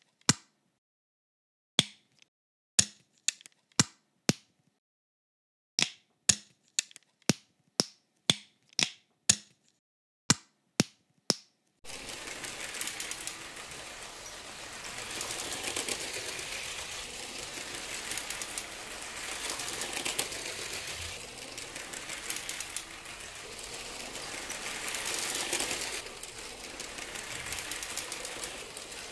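A run of sharp plastic clicks with silence between them, LEGO bricks and track pieces snapping into place. About 12 seconds in, a motorized LEGO train starts running along plastic track with a continuous rattling clatter that swells and fades three times as it passes.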